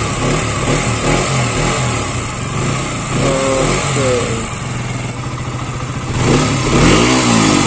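KTM Duke 125's single-cylinder four-stroke engine running through its underbelly exhaust, with a short rev in the first second or so and a longer rise and fall of revs near the end.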